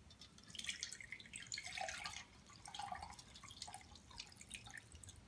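Lemon juice poured from a glass pitcher through a mesh sifter into a glass measuring cup: a faint, irregular trickling and dripping.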